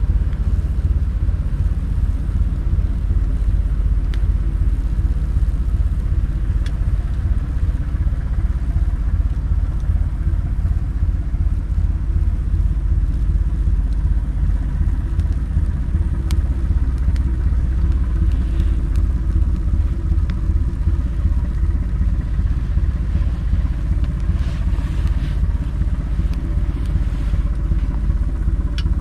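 Campfire of branches and driftwood burning, with a few faint sharp crackles and pops over a steady low rumble.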